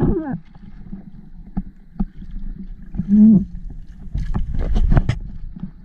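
Knocks and clatter on a small fishing boat as a longline is hauled in by hand over the side, over a low rumble of wind and water. A cluster of sharp knocks comes about four to five seconds in, and a short voice sound comes about three seconds in.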